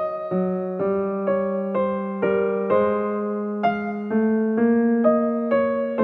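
Background piano music: single notes struck about twice a second and left to ring over a held low note.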